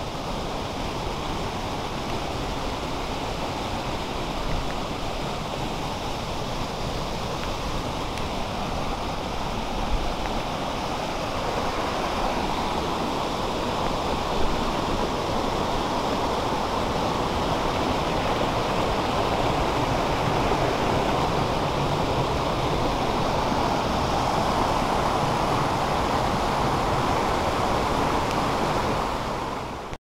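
Steady rushing of stream water tumbling over rocks. It grows louder about a third of the way in and stays strong, with a couple of brief knocks.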